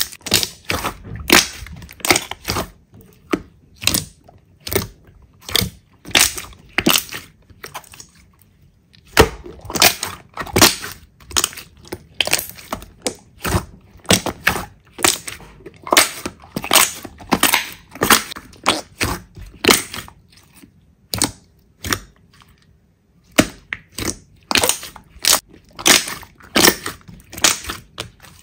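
Slime being squeezed and pressed by hand, giving a run of short crackles about one or two a second, with two brief pauses.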